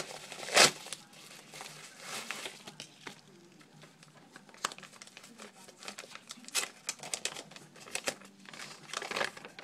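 Yellow padded mailer torn open by hand, with two loud rips in the first second, then paper crinkling and rustling in short bursts as the contents are unwrapped.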